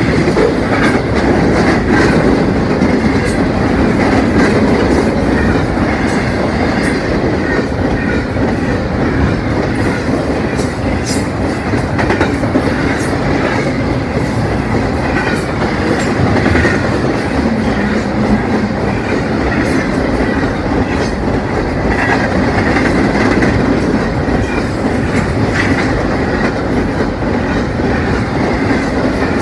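Double-stack container freight train passing at speed: a steady, loud rush of rolling well cars, with wheels clattering over the rails in frequent sharp clicks.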